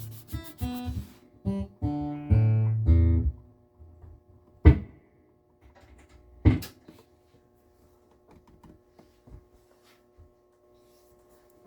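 Martin D-16 acoustic guitar being played: a quick run of plucked notes and chords, stopping about three seconds in, then two sharp knocks a couple of seconds apart, with the strings ringing faintly afterwards.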